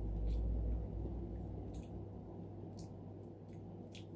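Close-miked chewing of soft, sweet potato: wet squishy mouth sounds with a few sharp lip smacks. A low rumble sounds in the first second.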